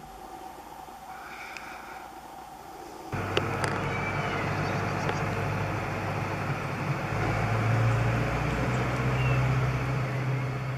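Old truck's engine running steadily as the truck pulls away, a low even hum. It starts abruptly about three seconds in after a quieter stretch, and grows louder a few seconds later.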